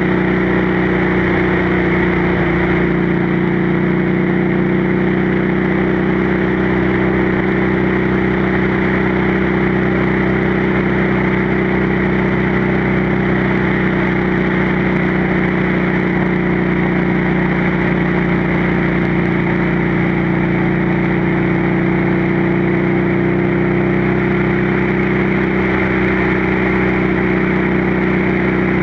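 Motorcycle engine and exhaust running at a steady cruise, with wind rushing over the microphone.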